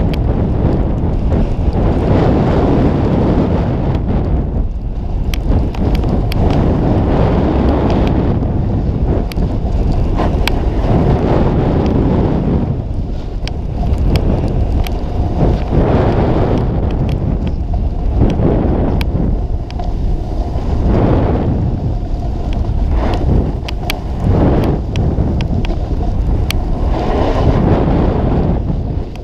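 Wind buffeting the microphone of a snowboarder's head-mounted camera, together with the hiss of the board sliding through powder snow, swelling and easing every few seconds with the turns. Small sharp ticks scattered throughout.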